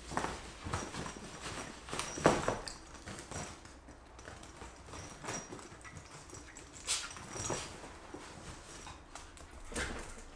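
Puppy pawing and scrabbling at the mesh door of a soft-sided fabric crate: irregular scratches, scrapes and knocks, the loudest about two seconds in, as it works its way out.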